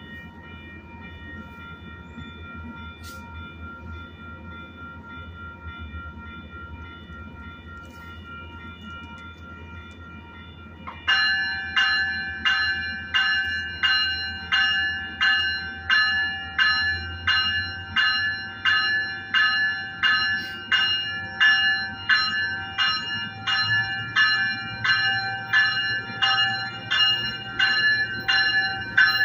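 Commuter train's warning bell: a faint steady ringing tone over the low steady rumble of the idling train for about ten seconds, then about eleven seconds in the bell starts striking loudly and evenly, a little under two strikes a second, and keeps going.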